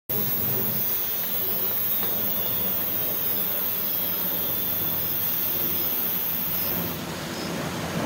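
Steady rushing of a shallow rocky mountain stream running over stones, with a high hiss on top that drops away about seven seconds in.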